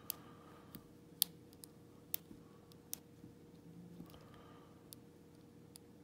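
Steel hook pick clicking and scraping against the pins inside an old brass Segal padlock held under light tension: small, sharp, irregularly spaced clicks, the loudest about a second in.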